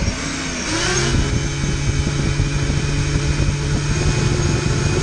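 FPV racing quadcopter's brushless motors spinning up, then running at a steady pitch with the props turning, over a rough hiss and crackle.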